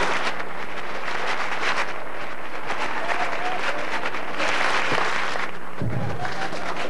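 Studio audience applauding: many hands clapping in a dense, steady patter.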